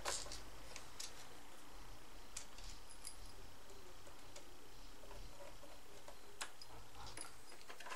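Faint, scattered small ticks and clicks of a small screwdriver driving a screw into the plastic battery-compartment cover of a toy RC dump truck, over a low steady room hum.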